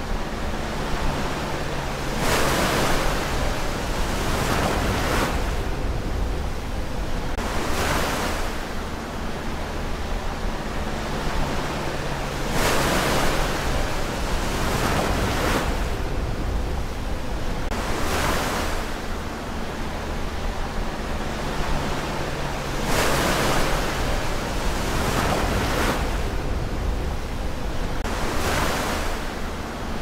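Ocean surf: waves breaking and washing in, a rushing hiss that swells and fades every few seconds.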